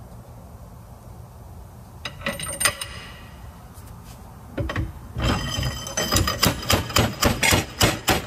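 Metal-on-metal banging as a length of pipe drives a heated press-fit part onto a Suzuki Samurai rear axle shaft. A few ringing strikes come about two seconds in, then a steady run of about a dozen more at two to three a second from about halfway.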